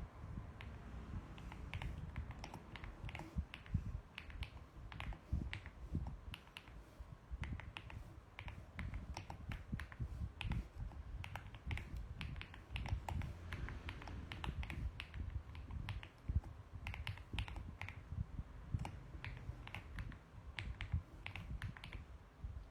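Typing on a mechanical keyboard: a fast, uneven run of key clicks with brief pauses between bursts.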